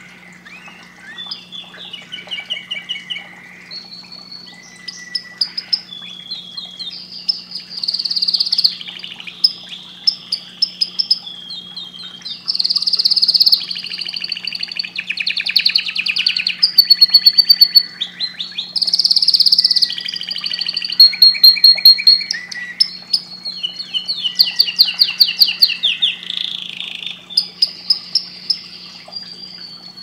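Domestic canary singing a long, unbroken song of rapid trills and whistled notes, changing phrase every second or two. A faint steady low hum runs underneath.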